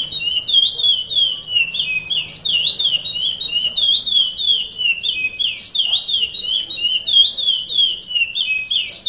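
Male curió (chestnut-bellied seed finch) singing the Paracambi 'rompe nuvem' song style: a long, unbroken run of quick, high, sliding whistled notes.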